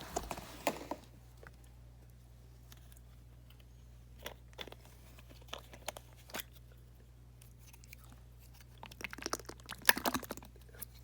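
Packaging crinkling and crackling as it is handled and opened, in short clusters near the start, in the middle and loudest near the end.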